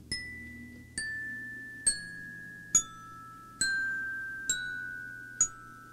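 Music: single bell-like notes struck on a tuned mallet instrument, a glockenspiel-like sound, about one per second, each ringing on under the next in a slow, mostly falling line, over a faint low hum.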